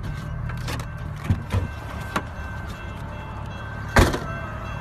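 Low steady rumble of a car cabin with the engine running, broken by several sharp knocks from the phone being handled, the loudest about four seconds in.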